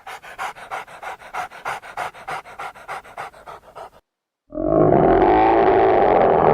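A farm animal breathing or panting rapidly, about six breaths a second. About four and a half seconds in, a loud, long animal call begins and runs on.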